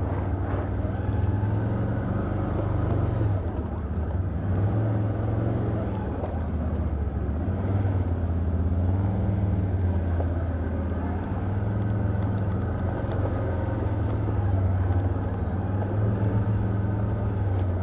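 Can-Am Outlander ATV engine running at low, fairly steady speed, swelling and easing a little with the throttle as the machine picks its way along a rough trail.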